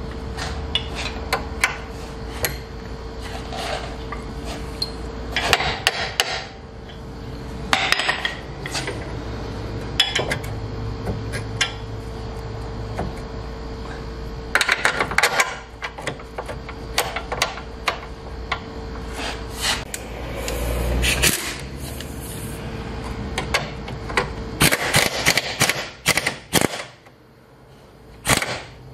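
Metal hand tools and bolts clinking and knocking against the steel subframe and lower control arm, in irregular clusters of sharp clicks, while the control-arm mounting bolts are fitted. A steady hum runs underneath and stops near the end.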